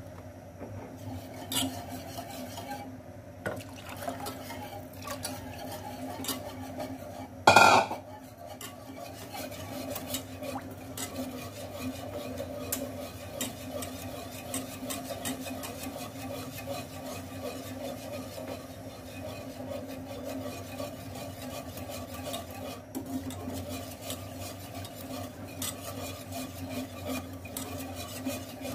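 Wire whisk stirring a milk-and-flour white sauce in a metal pan on the burner, its wires ticking and scraping against the pan many times a second as the sauce is worked until it thickens. One loud, brief knock comes about seven and a half seconds in.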